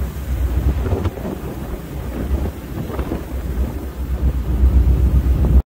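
Wind buffeting the microphone of a boat under way over choppy sea: a heavy, fluttering low rumble over the rush of churning water from the wake. It cuts off abruptly at the end.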